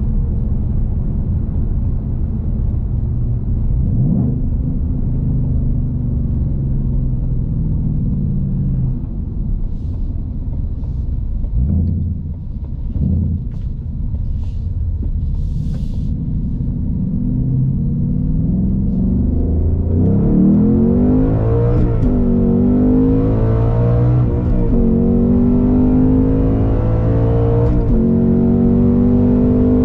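2021 Ford Mustang Mach 1's 5.0 L Coyote V8 heard from inside the cabin while driving through the gears of its Tremec six-speed manual: the revs climb and drop back at each gear change, getting louder and pulling harder from about two-thirds of the way through.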